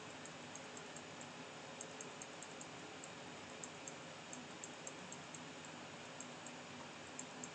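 Faint steady hiss of room and microphone noise, with light, irregular high-pitched ticks a few times a second.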